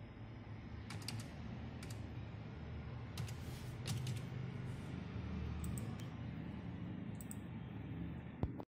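Computer keyboard keystrokes, a few scattered taps while typed text is corrected, over a low steady hum.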